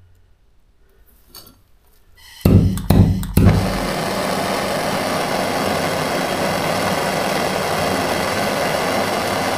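Small handheld gas torch lit with a few sharp clicks and pops about two and a half seconds in, then the steady hiss of its blue flame. The flame is heating a copper washer red to anneal it and make it soft again.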